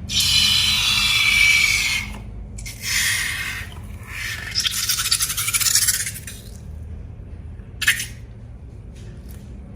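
Hands working balloons and slime ingredients: several scraping, rubbing bursts each a second or two long, then one short burst about eight seconds in and a few faint clicks.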